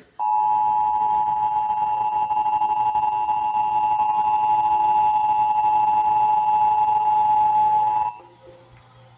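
Emergency Alert System attention signal: the steady two-tone alert (853 and 960 Hz sounded together), held for about eight seconds and cutting off sharply, announcing an EAS test message.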